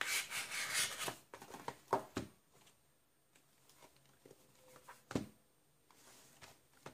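A cardboard DVD box being handled on a wooden tabletop: rustling and rubbing as it is turned over, a few light taps, and one sharp knock about five seconds in as it is set down or its flap opened.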